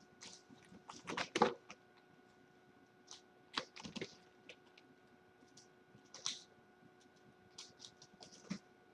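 Kittens playing and scrabbling on fabric and carpeted cat furniture: irregular scratchy clicks and taps of claws and paws, with a cluster of louder ones about a second in. A faint steady hum runs underneath.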